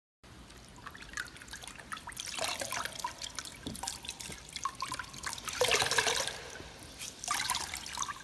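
A wet cloth being wrung out by hand, with water squeezed out of it and splashing and dripping. It comes in several surges of twisting, the loudest about six seconds in.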